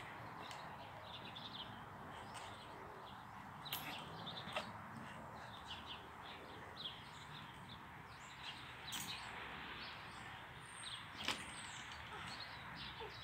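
Faint outdoor ambience with small birds chirping now and then, and a few sharp clicks.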